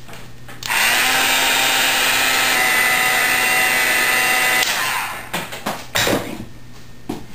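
Embossing heat gun switched on about a second in, its small fan motor whirring with a steady rush of hot air for about four seconds, melting black embossing powder on stamped cardstock, then switched off and winding down. A few light knocks follow near the end.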